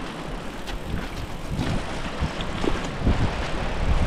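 Mountain bike rolling down a stone-pitched path, its tyres and frame knocking and rattling over the stones, with wind on the microphone.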